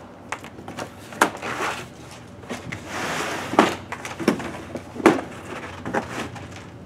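Long cardboard shipping box being opened by hand: irregular knocks and scrapes of cardboard, with a longer rustle of tearing about three seconds in.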